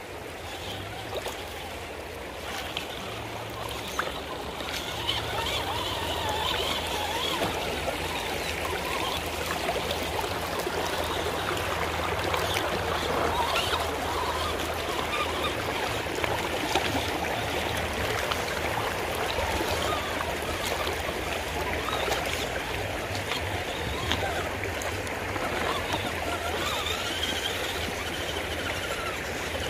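River water running with a steady rush, and a low hum underneath that shifts up and down in pitch now and then.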